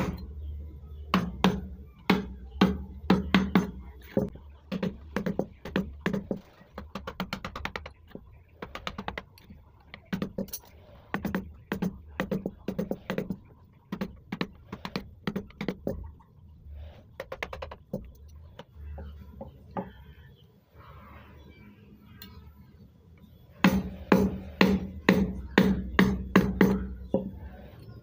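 Steel carving chisel driven into teak with quick mallet taps, in runs of sharp knocks a few per second. The tapping thins out in the second half, then picks up again in a fast run near the end.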